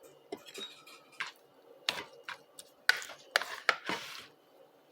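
Scattered light taps and clinks of a kitchen utensil against a bowl as eggplant is worked into a beaten egg and herb mixture. The taps come more often in the second half, with a short scraping stretch near the end.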